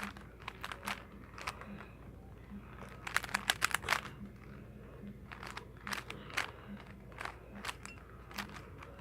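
Plastic Rubik's cube being twisted by hand: scattered clicks and clacks of its layers turning, with a quick run of clicks about three to four seconds in.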